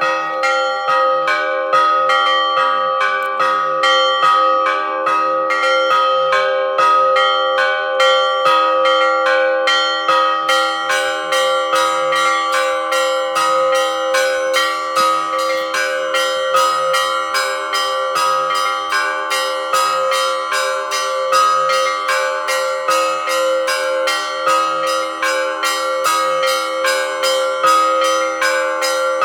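Russian Orthodox monastery bells ringing together: small high bells struck in quick succession over a slower, steady beat of larger bells, their tones ringing on and overlapping.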